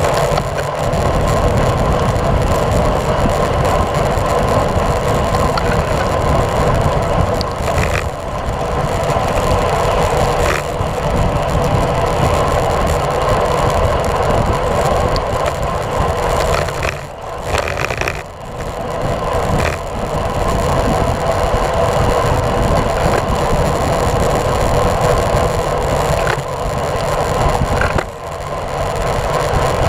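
Wind rushing over a bike-mounted action camera's microphone at road-racing speed, mixed with tyre and road noise from a road bike on wet pavement, with a few brief lulls.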